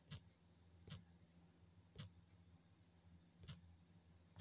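Faint, steady, high-pitched chirping of a cricket in rapid pulses, with a few soft clicks at uneven intervals.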